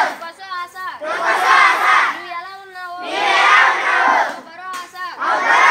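Call-and-response chanting: a single high voice calls out a line and a group of schoolchildren shout the reply back in unison. Three calls and three loud group replies, the last cut off at the end.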